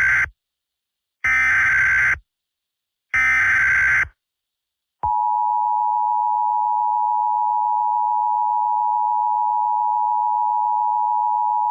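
Emergency Alert System SAME header: three harsh digital data bursts of about a second each, the first already under way, then about five seconds in the steady two-tone EAS attention signal begins.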